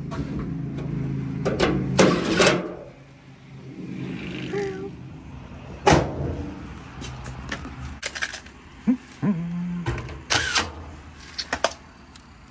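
Cordless drill driving screws into a dryer's sheet-metal top panel: the motor runs for about two and a half seconds and again briefly about four seconds in. A sharp knock follows about six seconds in, then scattered clicks and knocks as the panels are handled.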